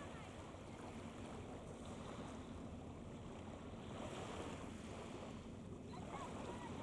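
Steady waterfront wind and water noise, with wind rumbling on the microphone and a faint low steady hum underneath. A brief high, arching call comes about six seconds in.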